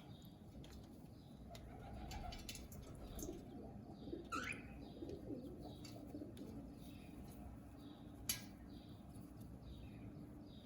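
Faint bird sounds: low, wavering cooing notes through the middle, one quick rising chirp about four seconds in, and small high chirps repeating in the background. A single sharp click comes a little past eight seconds.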